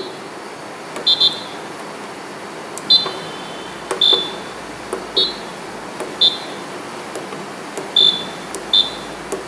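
VPL-DICT digital IC tester's keypad beeping as keys are pressed: about eight short, high electronic beeps, one per key press, irregularly a second or so apart, as the IC number is entered.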